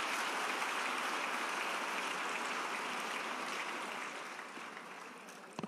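Audience applauding, a steady patter of many hands clapping that dies away over the last second or two. A single sharp knock comes just before the end.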